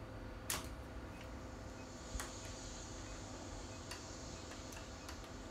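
A few sharp, separate clicks and taps of a hand tool and metal parts being worked on a replica Smart Gun, the loudest about half a second in, the others spaced a second or two apart.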